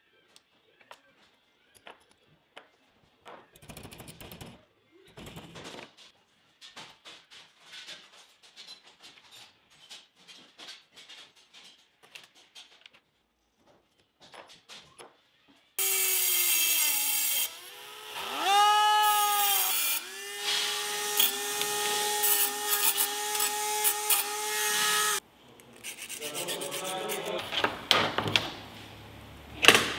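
Light clicks and scrapes of a steel rod and hand tools being handled at a bench vise, then a small power tool runs for about nine seconds, its motor whine rising and falling once, and stops abruptly; more clatter follows.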